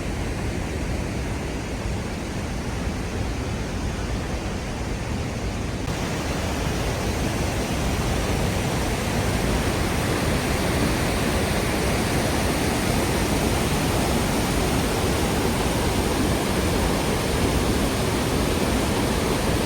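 Waterfall, water rushing and falling in a steady, even wash of noise that fills in slightly brighter after about six seconds.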